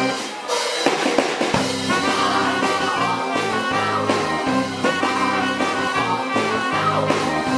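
Live funk band with brass horns and drum kit playing a groove. The bass end and full band kick in about a second and a half in.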